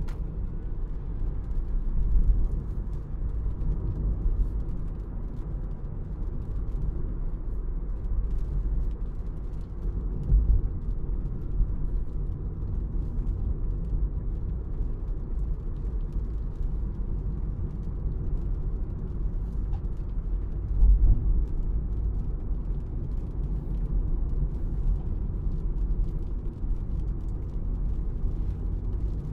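2024 MG3 Full Hybrid+ on the move: a steady low rumble of driving noise, with a few louder low thumps about 2, 10 and 21 seconds in.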